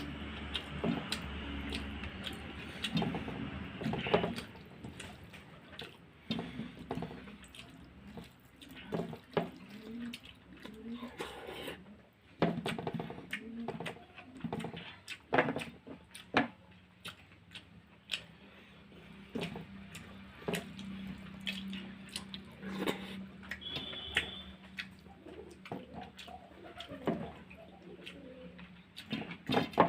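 Close-up wet eating sounds: a person chewing and smacking mouthfuls of rice with cooked bathua greens, in an irregular run of short wet clicks and smacks.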